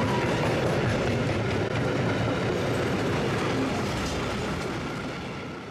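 A train running past on the rails, a steady rumble and rattle of wheels on track that fades away near the end.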